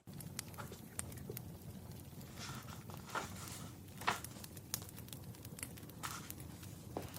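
Wood fire crackling: irregular sharp pops and snaps of burning firewood over a steady low rumble, with the loudest pop about four seconds in.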